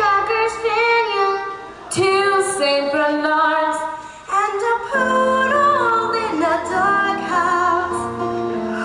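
Children singing short lines of a Christmas song into a microphone one after another, with a live band playing along.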